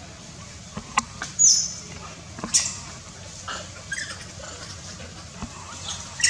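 Macaques giving several short, high-pitched squeals, one sliding down in pitch about one and a half seconds in, with a few sharp clicks among them.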